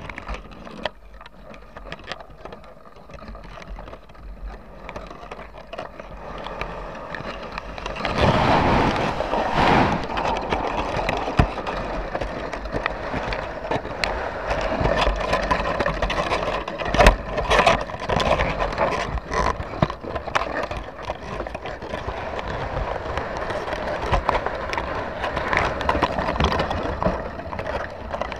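Dungeness crabs scraping and clicking against a GoPro's underwater housing and the crab pot, over a steady rush of water. It gets louder and busier from about eight seconds in.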